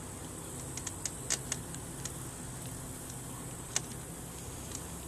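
Scattered small sharp clicks and ticks from working a hook out of a bass's mouth, over a steady low background hum.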